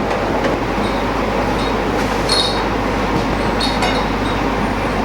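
Steady rushing kitchen noise from the hot pan and the kitchen around it, with a few light clinks of a utensil against the pan as the rice mixture is stirred.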